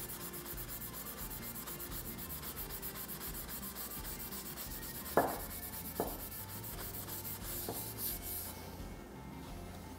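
Norton metal finishing pad (a maroon non-woven abrasive pad) scrubbing back and forth on the rusted steel of a Veritas hand plane, in fast, even strokes that take off rust loosened with a spray of Loctite P100. A few short knocks come about five, six and seven and a half seconds in, and the scrubbing stops shortly before the end.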